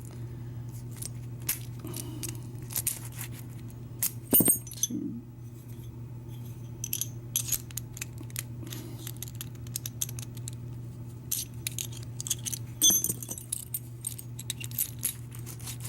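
A key being worked in a freshly rekeyed Schlage deadbolt cylinder to test it: scattered metallic clicks and scrapes of the key and lock parts, with a louder clack about four seconds in. A steady low hum runs underneath.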